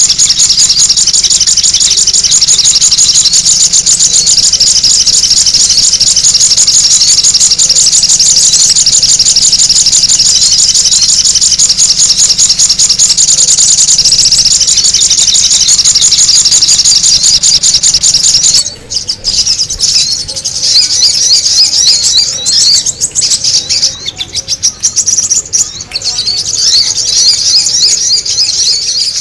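Sogon bird lure recording: loud, dense, high-pitched chattering calls, unbroken for most of the time, then breaking into separate bursts of calls about two-thirds of the way through.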